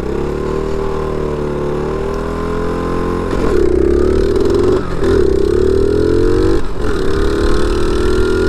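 Small pit bike engine accelerating hard, its pitch climbing in each gear, with quick gear shifts about three and a half, five and six and a half seconds in. Wind rumbles on the microphone underneath.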